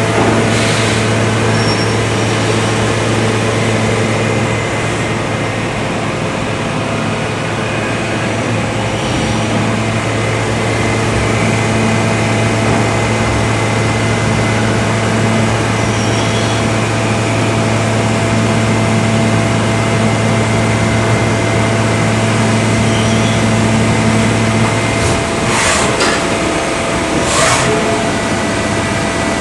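Machine shop floor noise: CNC lathes running with a steady hum and whine. The low hum drops away near the end, and two brief noisy bursts follow.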